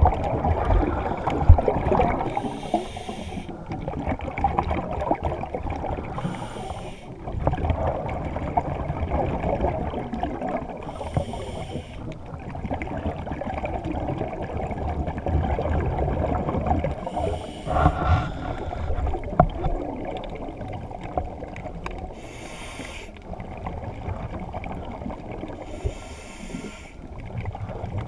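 Scuba diver breathing through a regulator underwater: a short hiss of inhalation about every four to five seconds, with a steady rumble of exhaled bubbles and water noise between, muffled through the camera's underwater housing.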